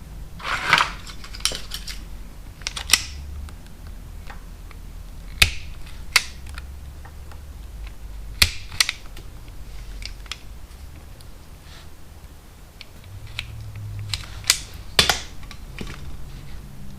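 Scattered sharp clicks and taps of small hand tools and wires being handled during wiring repair, over a faint low hum.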